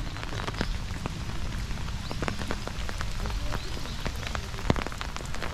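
Steady rain falling on an umbrella held just overhead, with many separate drops ticking sharply against the fabric over an even hiss.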